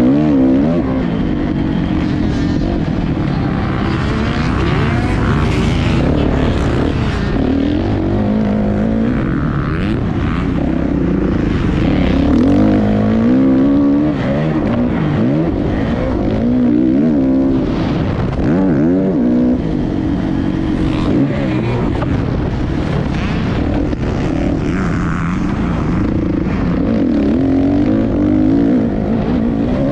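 Motocross dirt bike engine heard from an onboard camera, revving hard and dropping back over and over as the rider accelerates, shifts and rolls off around the track, its pitch rising and falling every second or two.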